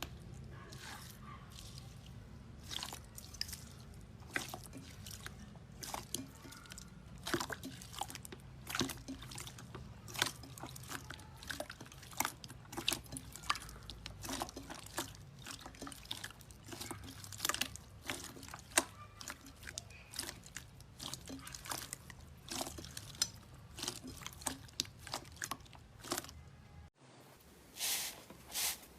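Slime being squeezed and poked by hand, with irregular sticky pops and crackling clicks, a few a second. There is a short break near the end, after which the popping goes on.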